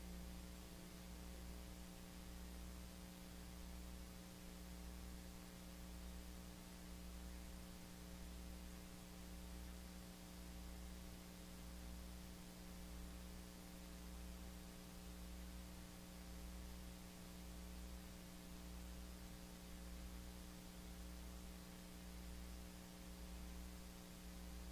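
Quiet steady electrical hum of several even tones over a faint hiss, with a low throb that swells about once a second; no speech.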